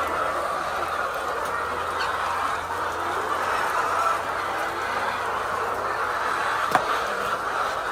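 A flock of laying hens clucking and calling together in a steady chorus. There is one sharp click about seven seconds in.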